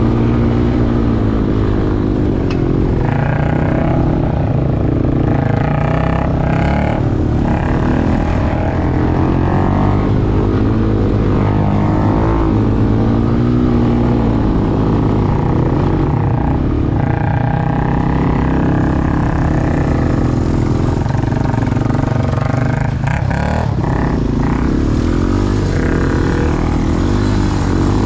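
ATV engines running hard on a dirt trail, the pitch rising and falling with the throttle and dipping briefly a few times as the rider lets off.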